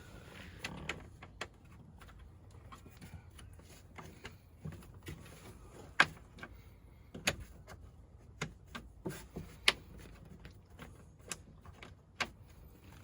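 Irregular clicks and knocks of a car seat's latches being worked into place, the sharpest knock about six seconds in.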